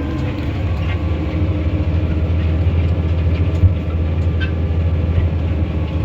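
Tractor engine running steadily under load while pulling a disc harrow through stony ground, with a few scattered clicks of small stones against the discs.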